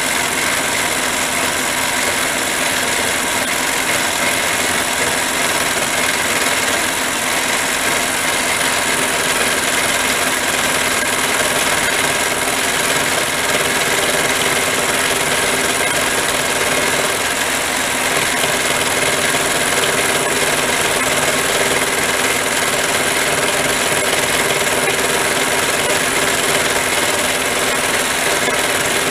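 Harbor Freight mini lathe running steadily with its spindle at about 1200 RPM, a constant motor and gear whine over a dense hiss, during a light milling pass.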